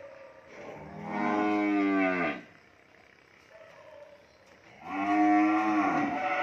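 Cattle mooing: two long moos, the first about a second in lasting about a second and a half and dropping in pitch at its end, the second beginning about five seconds in and still going at the end.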